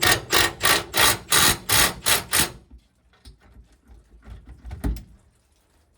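Stubby ratchet wrench clicking through quick back-and-forth strokes, about three a second, on a bolt, stopping about two and a half seconds in. A few faint clicks and a single knock follow near the end.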